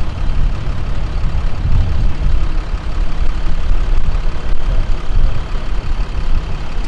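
Compound-turbo diesel engine of a lifted Ram 5500 off-road wrecker idling, a continuous low rumble that swells and dips.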